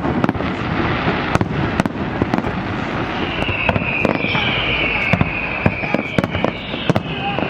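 Fireworks going off: many sharp cracks and pops over a dense, steady rumble of bangs. About three seconds in, a high whistle starts and slides slightly downward, the sound of a whistling firework.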